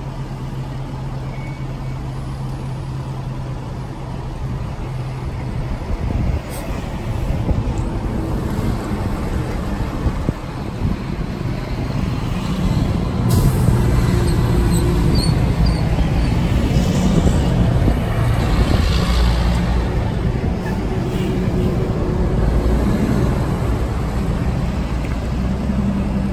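Slow procession of police cars and fire engines driving past, engines running. The low rumble grows louder about halfway through as a fire engine goes by.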